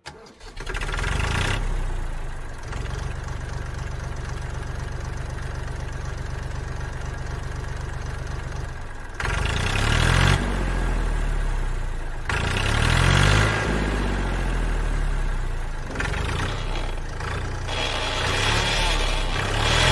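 Tractor engine idling with a steady low chug, then revving up and down several times from about nine seconds in.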